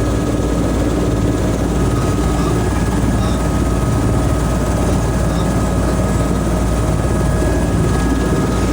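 Helicopter running close by, loud and steady, with a thin steady whine above the rotor noise.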